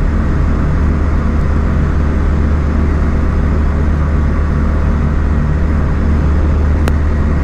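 Steady drone of a light aircraft's engine and propeller heard from inside the cockpit, with one short click near the end.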